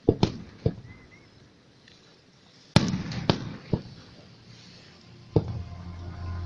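Fireworks bursting overhead: a string of sharp bangs at uneven intervals, several close together at the start, the loudest nearly three seconds in, and another near the end.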